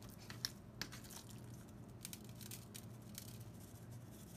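Faint kitchen handling sounds: a few light clicks in the first second, then scattered soft ticks and rustles, over a steady low hum.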